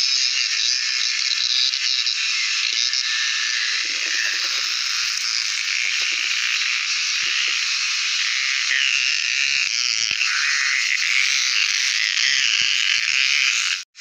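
Loud, steady high-pitched chorus of cicadas buzzing, with light rustles and taps of a plastic bottle being handled underneath. The sound drops out for an instant near the end.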